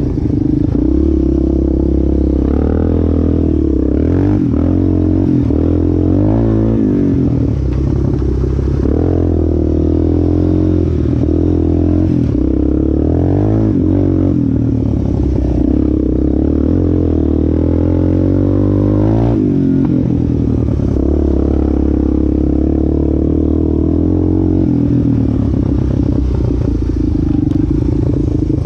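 Yamaha Warrior 350 ATV's single-cylinder four-stroke engine, freshly rebuilt and on its break-in ride, running under load on a trail with its note rising and falling over and over as the throttle is worked.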